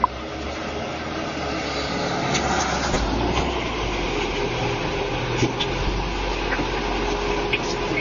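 A car engine running steadily with outdoor noise, heard through a doorbell camera's microphone.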